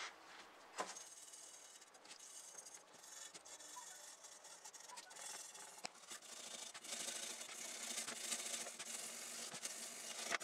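Scrubbing of a corroded die-cast model car body shell: a continuous scratchy rubbing that grows louder in the second half. A sharp knock comes about a second in.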